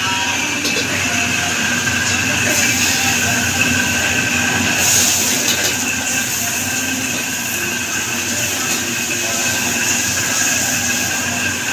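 Stir-frying in a wok over a high-flame restaurant gas burner: the burner runs steadily under the sizzle of food in the hot wok, with a few steady tones running through it.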